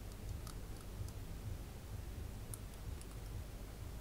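Faint, scattered light clicks of a paintbrush knocking against the inside of a small glass jar as it is stirred round through wet, paint-soaked cotton wool, over a low steady hum.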